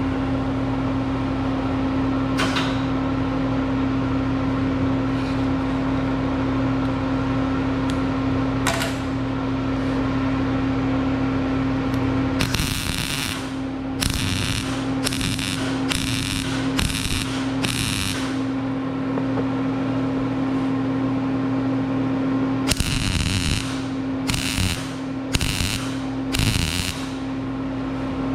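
Welding machine humming steadily, with two runs of short crackling weld bursts, six about halfway and four more near the end: short stitch welds around 3/4 inch plugs in steel pipe ends.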